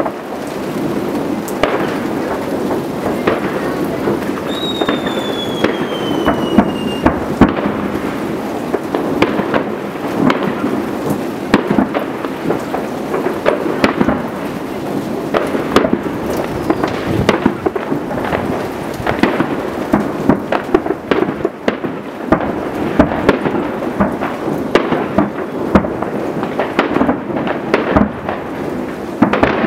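Many fireworks going off at once in the distance: a continuous rumble of booms and crackling bangs. About five seconds in, one whistle falls in pitch over a couple of seconds.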